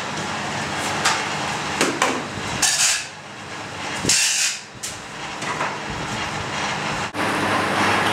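Workshop handling sounds in a bronze foundry's ceramic shell room: scattered knocks and clatter with two short hissing bursts. After a brief break about seven seconds in, a steady hiss sets in.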